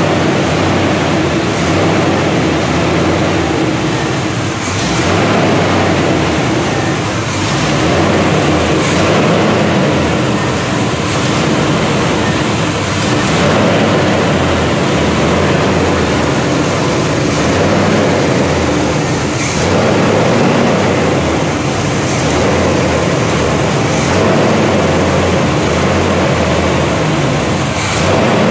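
1977 Corvette's 350 small-block V8 running steadily.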